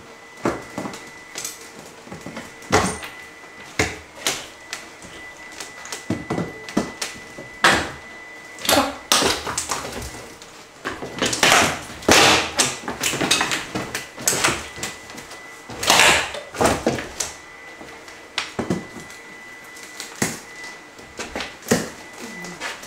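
Wooden partition framing being wrenched apart and pulled down by hand: irregular knocks, cracks and scrapes of lumber and debris, some single and some in loud flurries near the middle.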